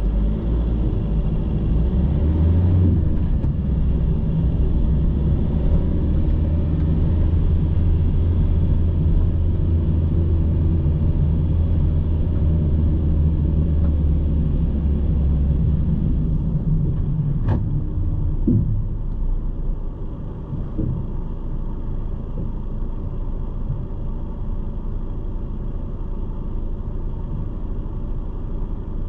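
Car driving in city traffic: a steady engine and tyre rumble while it moves, easing off about two-thirds of the way through as the car slows to a stop, then a quieter low rumble while it waits. A single sharp click about 17 seconds in.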